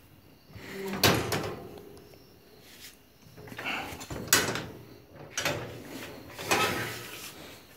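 A series of about six knocks and scrapes, a second or so apart, of hard objects being handled or bumped, the loudest about a second in and near the middle.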